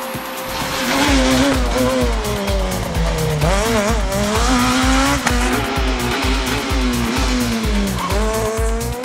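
Peugeot 207 rally car's engine at full throttle, its pitch rising and falling repeatedly with gear changes and lifts, over electronic music with a steady beat.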